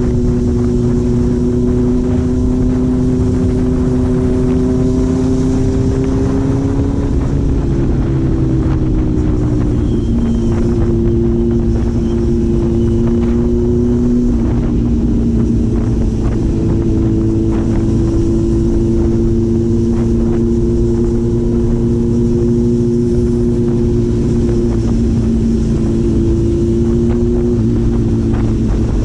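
Four-cylinder engine running under way, its note holding steady and then shifting lower and higher a few times as the speed changes.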